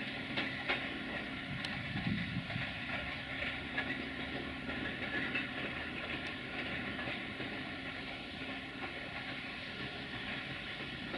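LDH1360 diesel-hydraulic locomotive hauling a passenger coach slowly through the station points: a steady rumble of engine and wheels, with scattered clicks and clatter from the wheels on the track.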